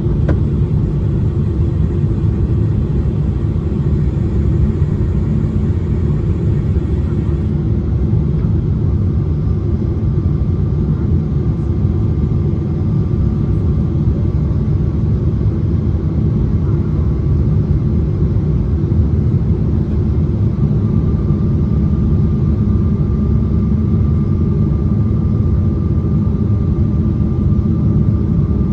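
Cabin noise of a Boeing 777-300ER on approach with the landing gear down: a steady, loud low rumble of airflow and engines. A faint steady whine comes in about nine seconds in and again near twenty seconds in.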